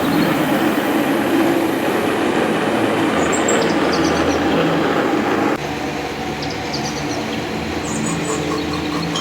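Metal lathe running and machining a mild steel workpiece: a steady mechanical cutting noise that drops in level about five and a half seconds in.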